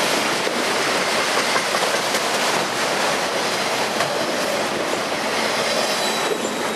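Autorack freight cars rolling past on the rails: steady noise of steel wheels on track. The last car goes by near the end.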